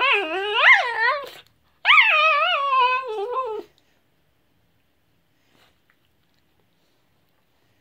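A deaf miniature Australian Shepherd gives two long, high whining cries whose pitch wavers up and down, the second starting about two seconds in.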